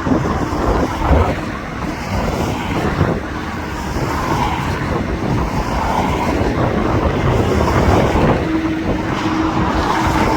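Low rumble of an aircraft's engines mixed with wind buffeting the phone microphone, with a steady hum joining about eight and a half seconds in.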